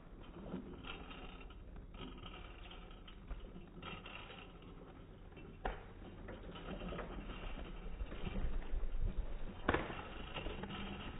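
Small Giant children's bike with training wheels rolling over rough concrete: the tyres and small training wheels rumble and the bike rattles, with a couple of sharp clicks. The rumble grows louder for a couple of seconds past the middle.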